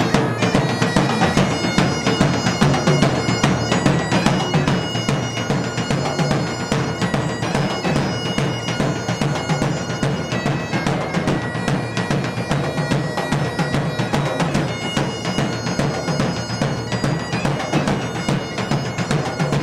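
Background bagpipe music: a steady drone under a melody of changing held notes.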